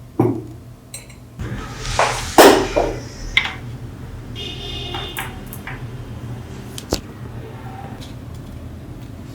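Metal pieces of a copper pot being handled: a knock, then a second or two of scraping and clattering with a brief ringing note, and a single sharp click later on.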